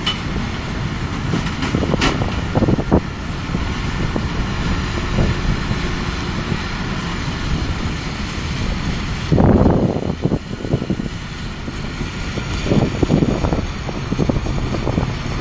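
New Holland T7.245's 6.7-litre six-cylinder diesel running under load, pulling a New Holland BigBaler 890 large square baler, with a steady mechanical drone and a few brief louder surges.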